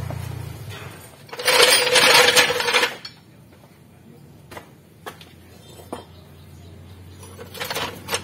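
A hand tool handled on a concrete floor: a loud metallic scraping clatter with a ringing note, lasting about a second and a half and starting a second in, followed by a few single light clinks and a short run of them near the end.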